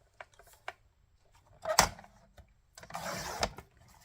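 Paper trimmer cutting a sheet of patterned paper: a sharp knock about two seconds in, then the blade rasping along the sheet for under a second near the end, with light handling clicks of the paper.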